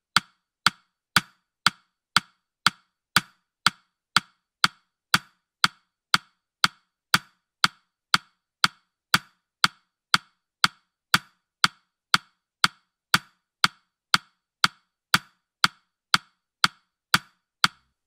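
A countdown timer's ticking sound effect: short, sharp, evenly spaced ticks, about two a second.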